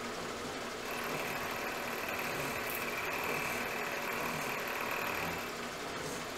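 Milling machine running, its cutter machining a magnet pocket into an aluminum vise jaw. A louder, higher-pitched cutting sound comes in about a second in and eases off a little after five seconds, leaving the machine running.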